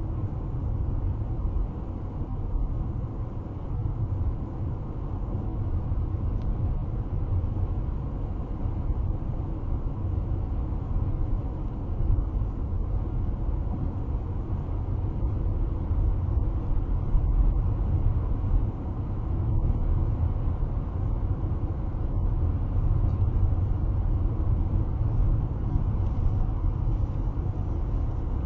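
Steady road noise heard inside a car cruising at highway speed, about 70 mph: a low, even rumble.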